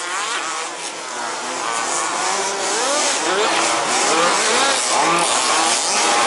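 Several 1/5-scale petrol RC buggy engines racing at once, two-stroke and chainsaw-like, each rising and falling in pitch as the throttles open and close.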